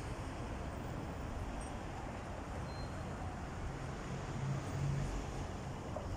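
Steady city road traffic: cars passing through a crossroads below, with one vehicle's engine swelling louder for a moment about four to five seconds in.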